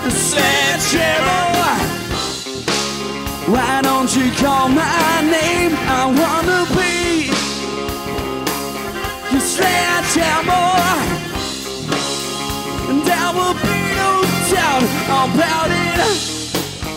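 Live rock band playing an instrumental passage: drums, bass and keyboards with an electric guitar lead line that bends and wavers in pitch.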